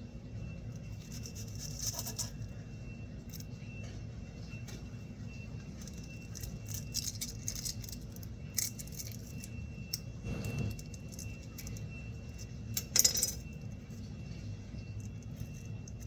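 Scattered light clicks, taps and rustles of hands and a knife working at a small onion to peel off its skin, over a steady low hum. The loudest tap comes about 13 seconds in.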